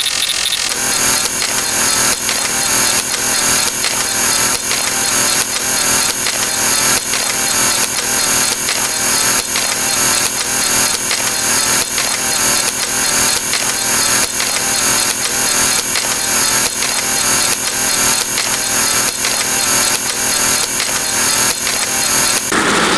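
A loud, dense din of many sound effects layered on top of each other and repeating rapidly, with a steady high-pitched whine over it. The whine and much of the din cut off shortly before the end.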